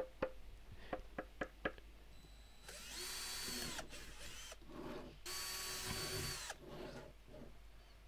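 Knuckles knocking about six times on a hollow 3D-printed PETG speaker cylinder, whose mostly hollow, lightly infilled wall is prone to resonance. Then a cordless drill runs in bursts as its bit bores holes into the top rim of the cylinder. The drill's whine drops in pitch as each burst winds down, and the drilling is the loudest sound.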